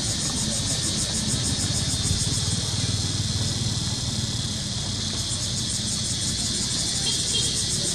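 Dense insect chorus buzzing steadily in a high, fast-pulsing drone, over a steady low rumble.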